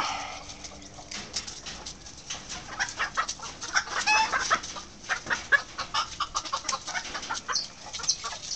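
Backyard chickens clucking, with a short call near the start and another about four seconds in, over many quick crackles of scratching and pecking in dry leaves and litter.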